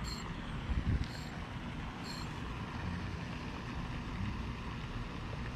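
Steady outdoor background noise with a low rumble, and a short low bump about a second in. Three faint, short high chirps come about a second apart near the start.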